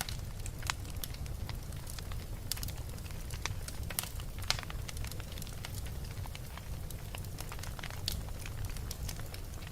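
Fire crackling in a fireplace: irregular sharp pops and snaps, one louder pop about four and a half seconds in, over a steady low rumble.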